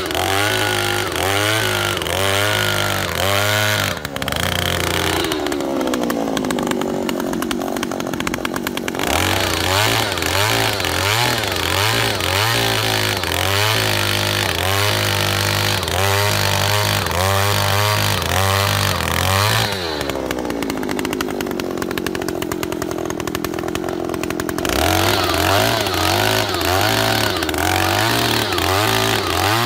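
Oshima 2PS earth auger's 54 cc two-stroke petrol engine running hard as its 300 mm bit drills into soil, its pitch wavering rapidly up and down. Twice, about four seconds in and about twenty seconds in, the engine drops back to a lower, steadier speed before picking up again.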